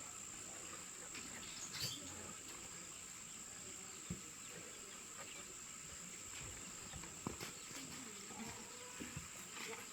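Steady high-pitched drone of insects, with a few faint knocks and clicks scattered through it.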